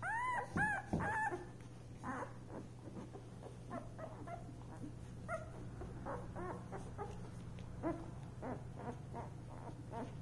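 Nine-day-old puppies whimpering and squeaking: a few louder, rising-and-falling whines in the first second, then many short soft squeaks and grunts, over a steady low hum.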